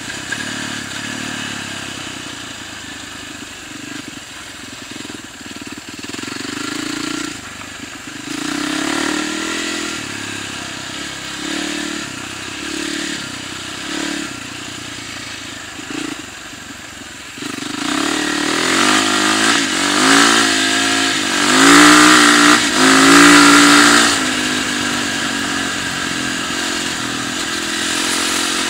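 Yamaha dirt bike engine being ridden on ice: short throttle blips about once a second at first, then, past the middle, louder and longer revs that rise and fall in pitch.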